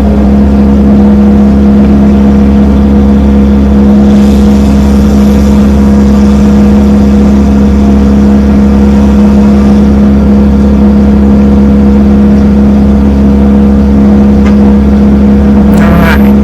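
Large engine idling, a loud steady drone that holds one pitch throughout. A faint hiss rises for a few seconds near the middle.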